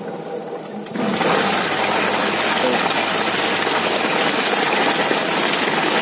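Akari washing machine's wash tub running, its motor and pulsator churning water and clothes with a steady noise that starts about a second in.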